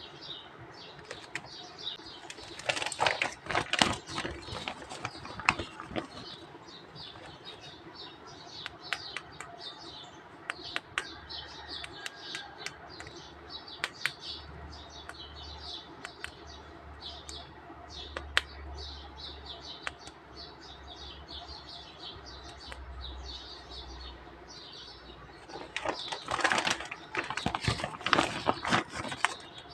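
Rustling and small sharp clicks of plastic being handled, with two louder bursts of crackling near the start and near the end.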